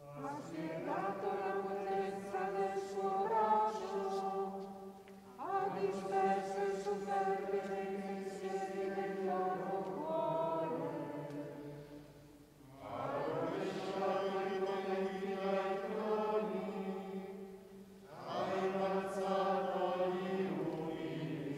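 Voices singing a slow, unaccompanied liturgical chant in unison, in four long phrases with short breaks between them.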